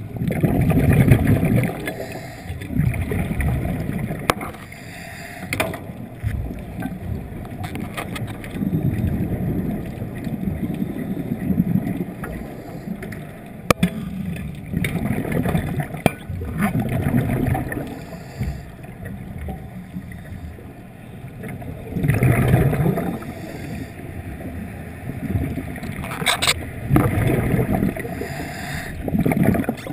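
Underwater recording of a diver's breathing: loud bursts of exhaled air bubbling out every few seconds, with a steady underwater rush between them and a few sharp clicks.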